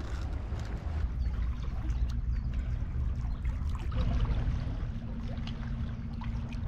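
Water lapping and splashing with small trickling ticks, over a steady low rumble of wind on the microphone. A low hum comes in about two seconds in and runs on and off.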